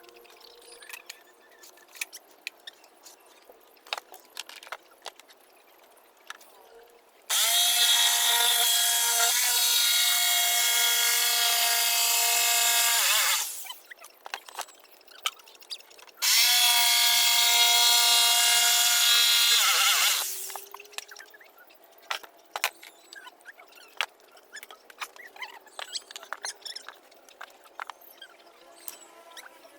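Power tool, most like a drill, run twice: once for about six seconds and again for about four, each time whining up to speed and winding down when released. Light knocks and clicks of work handling come between the runs.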